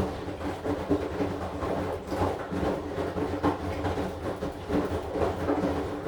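AQUA AQW-DX12M front-loading drum washing machine turning its drum during the wash, with the laundry and water tumbling and swishing over a steady motor hum.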